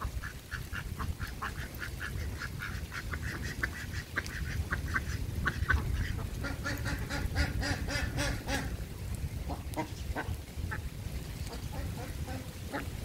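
Birds calling: a fast run of short repeated calls for about five seconds, then a louder, fuller cluster of calls, and a few scattered calls near the end, over a steady low rumble.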